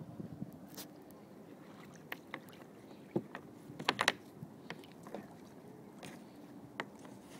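Sea water lapping at a kayak, with scattered light knocks and clicks against the boat, several close together about four seconds in.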